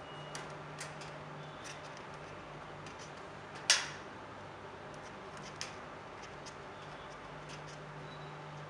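Small plastic clicks and ticks as wires are handled and orange twist-on wire connectors are screwed onto them, with one sharp, much louder click a little under four seconds in. A steady low hum runs underneath.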